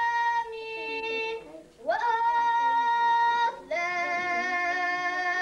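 A young girl singing solo and unaccompanied, in long held notes grouped into short phrases with brief breaths between them.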